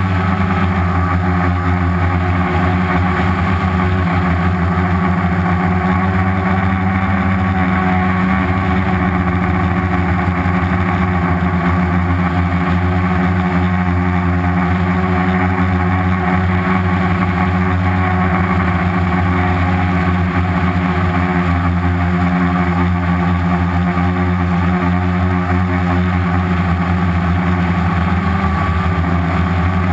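Homemade quadcopter's four Turnigy 2217 1050kv brushless outrunner motors spinning 10-inch slow-fly propellers in flight, a steady low hum heard close up through the camera mounted on the frame.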